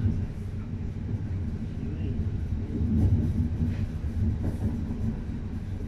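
Steady low rumble of a passenger train running along the track, heard from inside the carriage, swelling a little about three seconds in.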